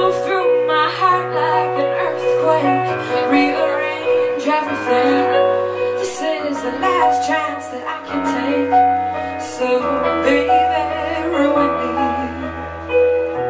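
A woman singing a slow song live into a microphone over keyboard accompaniment, with long held bass notes that change every second or two.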